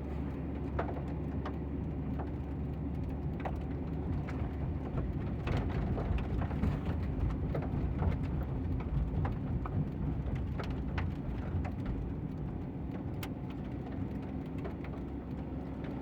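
A heavy engine running steadily, with scattered sharp clicks and crackles on top.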